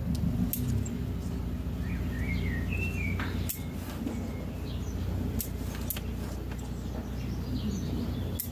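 Bonsai scissors snipping privet twigs: several sharp clicks a second or more apart. A small bird chirps briefly about two seconds in, over a steady low background rumble.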